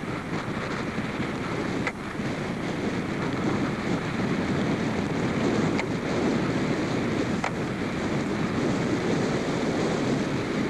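Steady wind rushing over the microphone, with a few faint clicks.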